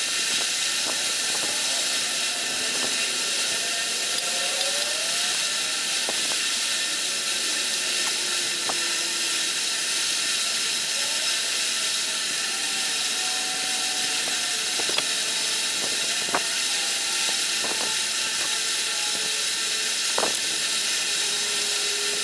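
Steady hiss throughout, with a few light clicks and taps as a micrometer is handled against a crankshaft's main journals.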